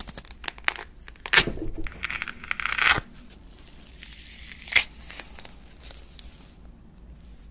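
Thick peel being torn off a large dekopon mandarin by hand: crackly ripping, densest and loudest between about one and three seconds in. A single sharp rip near five seconds in as the peeled fruit is pulled apart into halves, then softer rustling.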